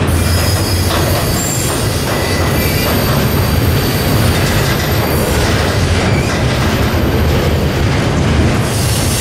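Loaded double-stack container well cars of a freight train rolling past slowly, a steady low rumble of steel wheels on rail. A faint high-pitched wheel squeal sounds over the first few seconds.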